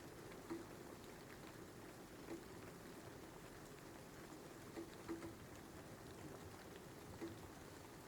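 Soft, steady rain with a few louder drops standing out now and then.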